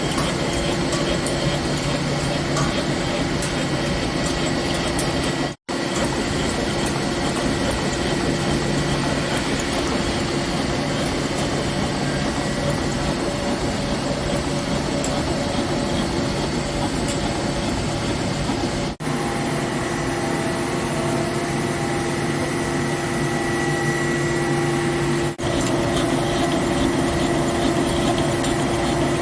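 Heavy CNC machine tool running and cutting steel: a steady mechanical noise with a few constant tones, broken three times by a brief dropout.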